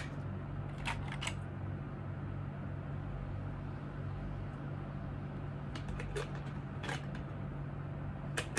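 A few short, light plastic clicks, spread out, as AA batteries are fitted into the battery compartment of a small robot camera mount, over a steady low hum.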